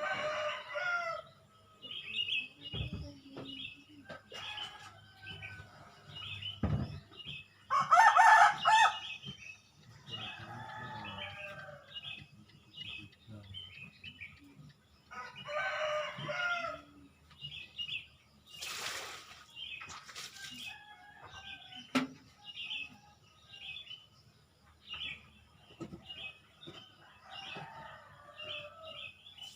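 Small birds chirping steadily in quick, short high notes, with domestic chickens calling over them: a rooster crows about four times, loudest about eight seconds in.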